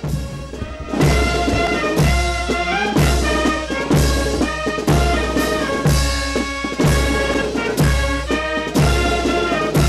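Brass-led music with a heavy bass drum beat about once a second.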